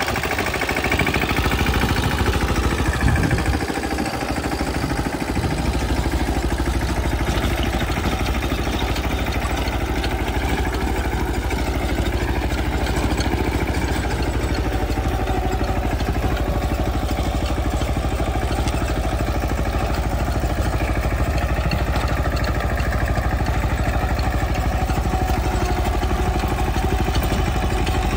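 Mahindra Yuvraj 215 NXT mini tractor's single-cylinder diesel engine running steadily under load while it drives a Mahindra rotavator through the soil. The engine is briefly louder a few seconds in, then runs evenly.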